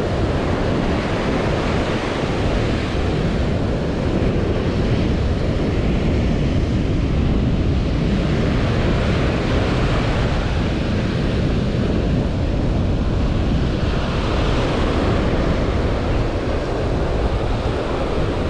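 Small surf breaking and washing up a sandy beach in a steady wash of noise, with wind buffeting the microphone.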